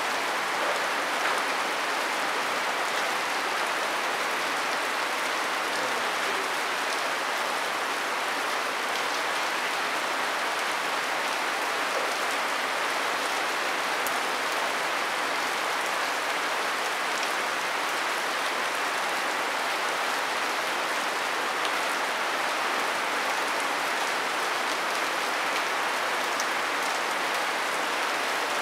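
Steady rain: an even hiss with occasional faint drop ticks.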